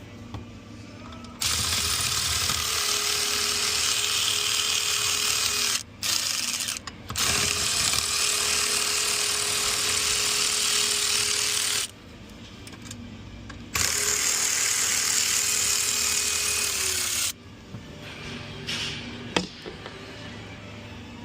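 A handheld electric power tool runs in three long bursts, with a brief break in the first. A steady motor whine sits under a loud hiss, and the pitch sags a little as each burst stops. Quieter handling noises and a sharp click follow near the end.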